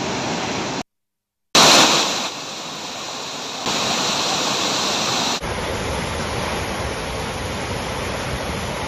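Floodwater rushing and pouring over a weir: a steady, heavy roar of water. It drops out completely for about half a second about a second in, then comes back in several short clips whose loudness changes abruptly at each cut.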